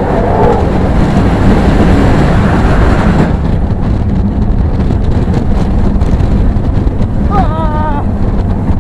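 Roller coaster train running fast along the track: a loud, steady rumble of wheels with wind buffeting the microphone. A rider lets out a brief wavering yell near the end.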